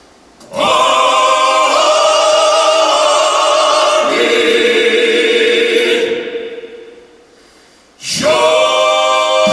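Male vocal quartet singing unaccompanied in close harmony, holding long chords. A chord comes in about half a second in, shifts around four seconds, fades out near six seconds, and a new chord starts near the end.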